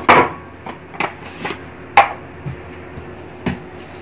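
A few sharp knocks and taps of a wooden chopping board and kitchen things against a glass mixer jar and the counter as ingredients are tipped in. The loudest knocks come right at the start and about two seconds in.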